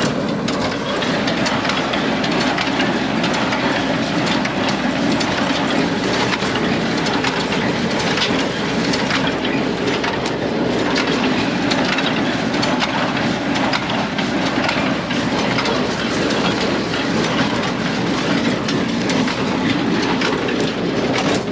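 Small square baler running in the field behind a tractor, its plunger and feed working steadily with a dense clatter of knocks as it packs hay, over the tractor's engine.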